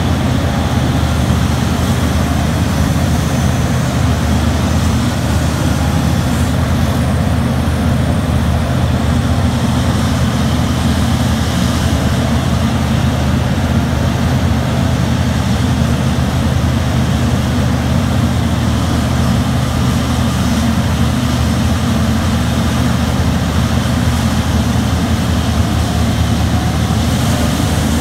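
Terex RH170 front shovel mining excavator's diesel engine running under load as it digs into the face and lifts a full bucket: a loud, steady, low drone.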